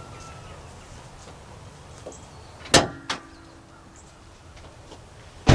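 Hood of a 2018 Toyota RAV4 being unlatched and raised: a sharp metallic clunk a little under three seconds in, and another sharp click at the very end.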